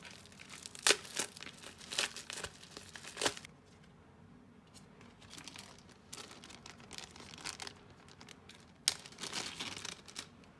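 Unboxing handling noise. A white accessory packet is torn open with crackly tearing in the first few seconds. Softer rustling of small plastic bags follows, then a sharp click near the end as a zip-lock bag opens, with plastic crinkling as a coiled cable is drawn out.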